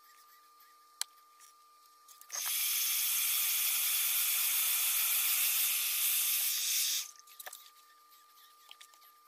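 A steady blast of compressed air hissing from a nozzle for about five seconds, cutting off abruptly, as it blows the wet alcohol ink across the tumbler. A single sharp click comes about a second in.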